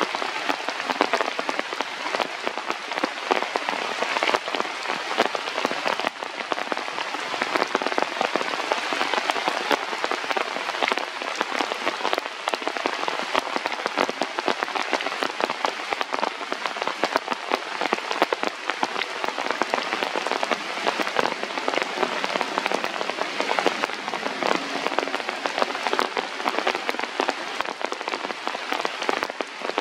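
Steady heavy rain falling, a dense hiss peppered with many sharp individual drop hits.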